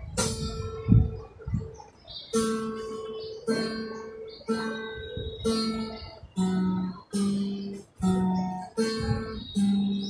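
Acoustic guitar strummed one chord at a time, about once a second, each chord ringing and fading before the next, the chords changing as it goes.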